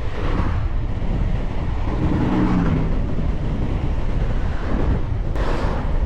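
Wind buffeting the camera microphone while riding, a loud steady low rumble, with a short low hum about two seconds in and a brief hiss about five and a half seconds in.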